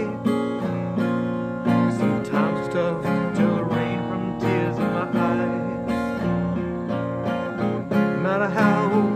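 Fender Sonoran acoustic guitar, capoed, strummed through a slow, sad country chord progression.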